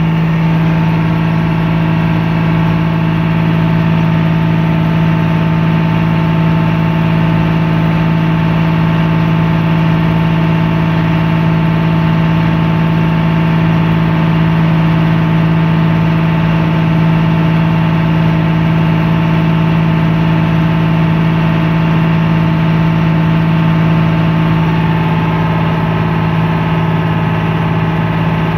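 Engine of a small passenger boat running steadily underway, heard from on board as a constant loud hum at an unchanging pitch.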